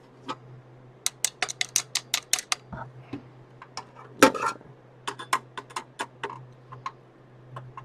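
Runs of sharp clicks and clacks of hard plastic and metal parts knocking together as a motherboard heat sink and its plastic retention clips are worked loose, with one heavier knock about four seconds in.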